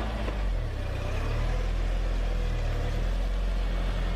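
A vehicle engine running steadily at low revs with a deep hum, dropping away near the end.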